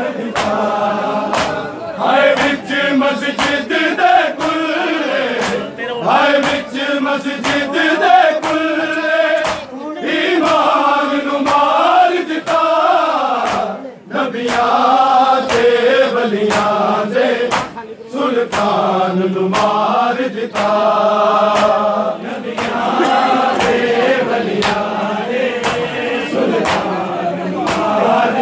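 A group of men chanting a Punjabi noha (Shia lament) together, over a steady beat of hands striking chests in matam.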